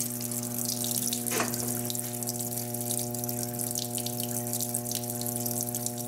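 Water pouring into the tub of a Panasonic 18 kg Titanium (NA-F180P7T) top-loading washing machine as it fills for its final rinse, the drum not turning. A steady hum runs under the splashing.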